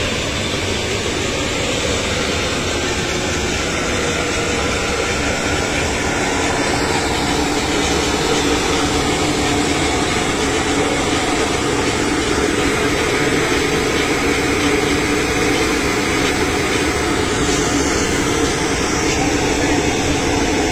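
Steady turbine noise from a parked business jet, a continuous even whine and rush with no break.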